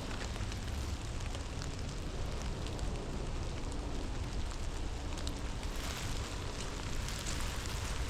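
Steady rain, with many small drop ticks landing close to the microphone over a low rumble.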